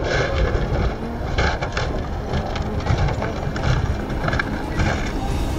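Hill-climb race car crashing at speed on a gravel course: a rough, loud rumble with wind buffeting the microphone and several sharp knocks.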